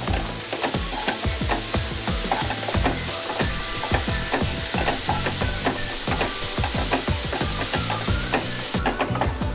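Chopped onions sizzling as they fry in a nonstick pan, with a wooden spatula scraping and clicking against the pan as they are stirred. The sizzle eases near the end.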